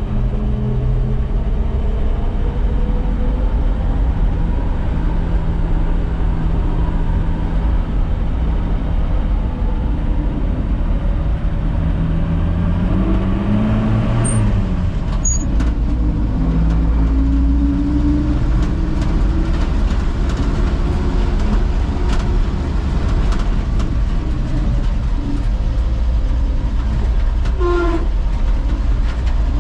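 Old Chevrolet Maple Leaf truck's engine running under load, its pitch rising and falling as it is revved, with a few short knocks.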